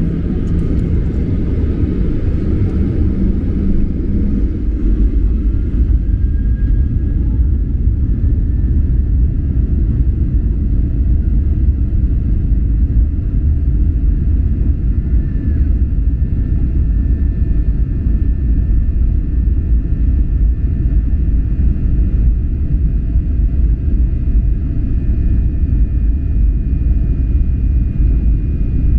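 Airliner cabin at takeoff, heard from inside: the jet engines at takeoff power make a loud, steady rumble under a thin engine whine. The whine rises in pitch about six seconds in.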